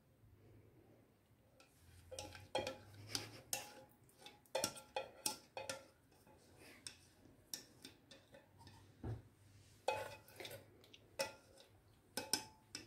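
Wire whisk scraping and tapping against the inside of a saucepan: irregular clusters of sharp clinks and scrapes, beginning about two seconds in, as the last of a thick hot pudding is scraped out of the pan.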